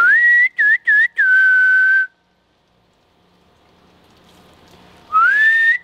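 A person whistling a call to summon free-range ducks: a rising note, two quick dipping notes and a long held note, then a pause of about three seconds before the same call starts again near the end.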